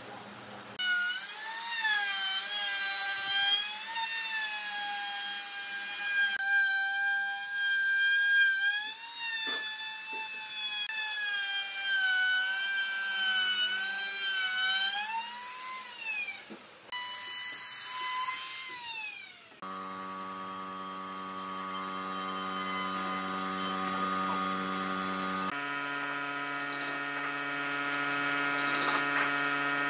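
Makita trim router running and cutting along the edge of a wooden bench top, a high whine that wavers with the load, rising and then falling away as it spins down. Then a very steady hum with many overtones, dropping to a lower pitch near the end.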